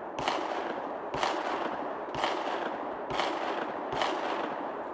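Gunshots from elsewhere on an outdoor shooting range: five shots at a steady pace of about one a second, each followed by a long echo.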